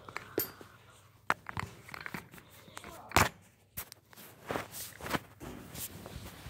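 Footsteps and irregular knocks and thumps from moving around a small carpeted room, with the loudest thump about three seconds in.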